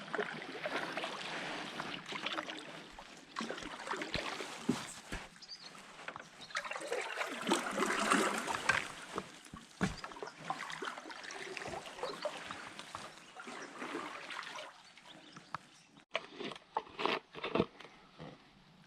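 Water splashing and sloshing, with scattered small knocks and clicks. It swells to its loudest about halfway through, and a cluster of sharper knocks comes near the end.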